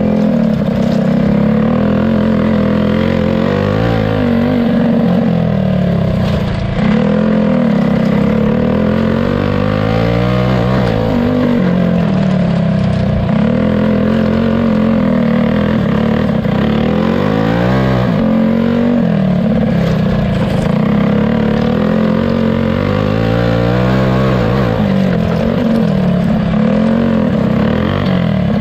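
Heavily modified 212 cc-class clone-block single-cylinder four-stroke go-kart engine, heard onboard and loud, its pitch climbing and falling again and again every few seconds as the kart accelerates and lifts through the laps.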